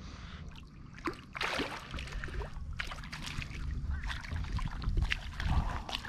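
A small hooked drum splashing and thrashing at the water's surface beside the boat as it is reeled in; irregular splashes start about a second in and continue.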